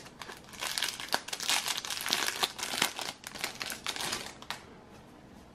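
Clear plastic wrapping crinkling and crackling as it is pulled off a stack of cardboard drink coasters by hand, stopping about four and a half seconds in.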